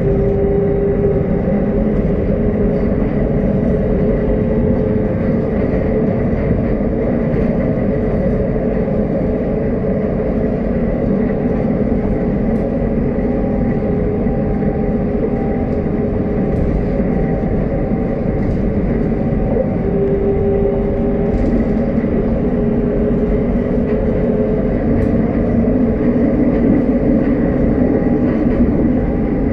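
Montpellier line 3 tram running along its track: a steady rumble with a few steady humming tones over it and faint occasional clicks.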